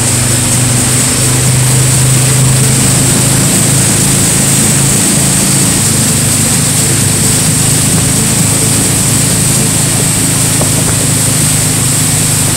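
Motorboat engine running steadily at towing speed, a low even drone, with the rush of the churning wake and wind.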